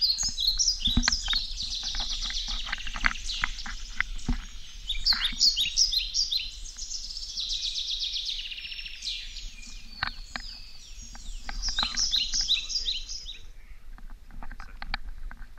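Small songbirds chirping and singing in fast runs of high, repeated notes, thinning out near the end. Scattered knocks and thumps sound underneath.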